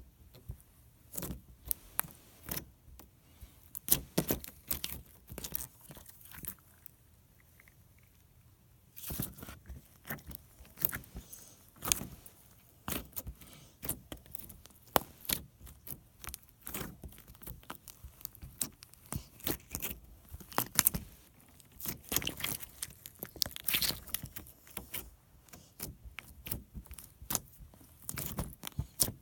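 Stiff homemade putty being squished and worked by hand for ASMR, giving irregular sticky clicks, pops and crackles. There is a quieter pause from about six to nine seconds in.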